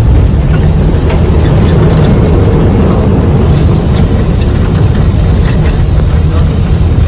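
Airbus A321 on its landing rollout, heard from the cockpit: a loud, steady low rumble of engines and wheels on the runway that jumps up abruptly at the start, with faint scattered ticks above it.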